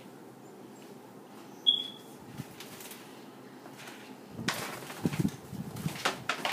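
A single short, high squeak about two seconds in, then rustling and scuffling with a few light thumps in the last two seconds as kittens scramble among bags and cables.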